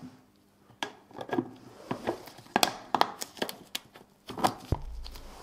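Irregular sharp clicks and knocks of hard plastic as a 3D-printed lid carrying the mixer motor and impeller is fitted onto a plastic paint mixing cup by gloved hands, with a low thump near the end.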